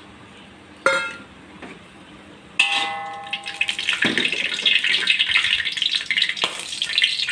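Whole spices (cinnamon stick, cardamom pods, cloves) frying in hot oil in a large wok. A short metallic clink comes about a second in, then a ringing metal clang near three seconds in, after which the oil sizzles steadily.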